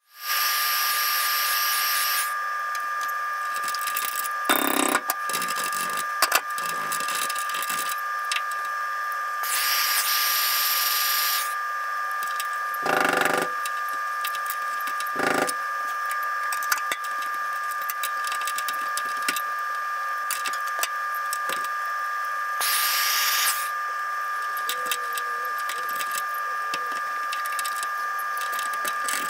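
Pneumatic air chisel hammering continuously, cutting rusted sheet metal out of a truck bed's tail panel, with a few louder stretches.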